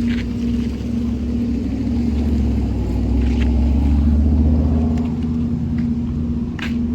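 Truck engine running, heard from inside the cab: a steady low rumble with a constant hum that swells slightly about halfway through.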